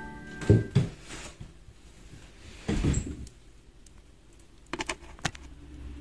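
The last notes of a Kawai piano die away, then scattered knocks and handling bumps as the player gets up from the piano bench and reaches for the recording phone, with a few sharp clicks near the end.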